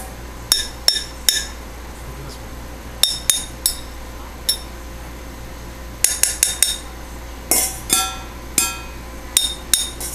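A baby banging on bowls and a pot: irregular clusters of sharp clinking strikes, each ringing briefly with a clear tone, with short pauses between clusters.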